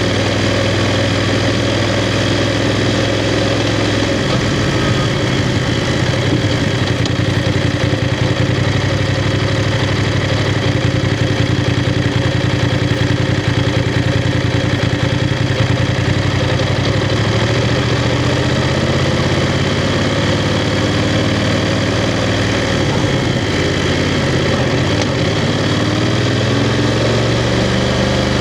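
BMW F 750 GS parallel-twin engine running at low revs, mostly steady, with slight rises and falls in pitch in the second half.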